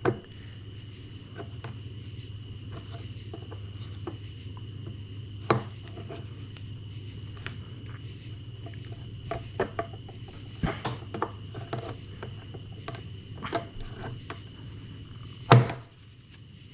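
Scattered clicks and knocks of plastic engine-bay parts and a hand tool as the air box and its housing are worked loose, the loudest three spread across the stretch. A steady low hum and a steady high whine lie under them throughout.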